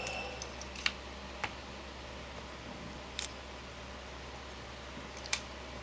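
A few sparse, faint metallic clicks and taps at irregular intervals from a disassembled padlock core and its pins being worked with a small probe. They sit over a steady low hum.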